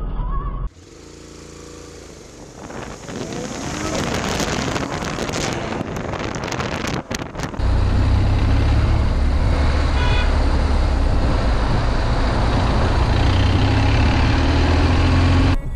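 A motorcycle's engine heard through the rider's helmet camera. It runs quietly at first, then rises as the bike pulls away along the road. From about eight seconds in, heavy wind rumble on the microphone becomes the loudest sound.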